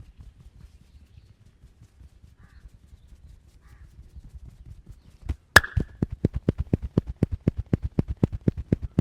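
Massage strokes on a person's back or head: faint low thumps at first, then one sharp snap about five and a half seconds in, followed by a fast, steady run of slapping hand strikes, about five a second.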